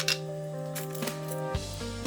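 Instrumental background music of held, changing notes, with a deep bass coming in near the end and a few short clicks.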